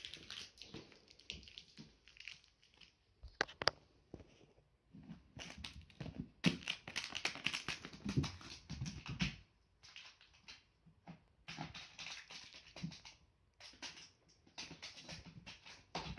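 Kitten batting and pouncing on a wrapped candy on a quilted cloth mat: rustling and crinkling of the wrapper and cloth with light paw scuffles, in bursts separated by short pauses.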